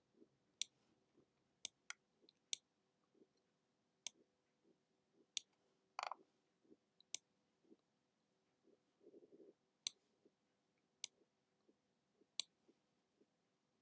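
Faint, irregularly spaced single clicks of a computer mouse, about a dozen, with a brief, slightly longer sound about six seconds in.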